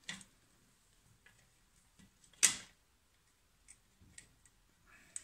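Faint handling clicks of connecting wire and plastic circuit-kit parts: a sharper click about two and a half seconds in, with a few light ticks after, as a red wire is fitted into the spring terminals of a battery holder.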